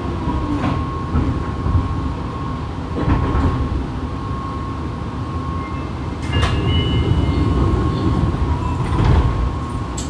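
Fukuoka City Subway 2000 series car's Hitachi GTO-VVVF inverter whining under braking, heard from inside the car right above the unit: a tone falling in pitch over a steady high whine, with wheel and track rumble as the train slows to a stop at a station.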